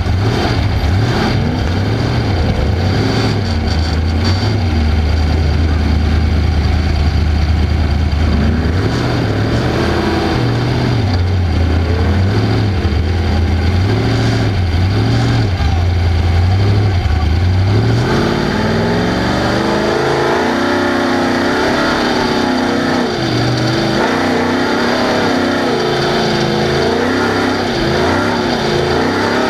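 Off-road race car's engine at speed, its note rising and falling with the throttle. About two-thirds of the way through it revs up and stays higher-pitched.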